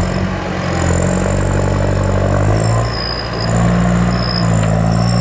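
Massey Ferguson 5455 tractor engine working under load as it climbs the silage clamp with a buckrake. The engine note eases a little about two and a half seconds in, then picks up again, with a thin high whistle above it.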